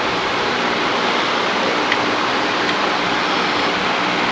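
Electric floor fan running, a steady whooshing rush with a faint hum under it. Two faint light ticks, about two seconds in and again shortly after, from a small hand tool at the fender.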